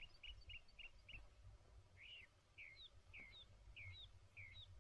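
Faint bird chirping: a quick run of five short chirps, then after a pause a slower series of five sweeping chirps about half a second apart.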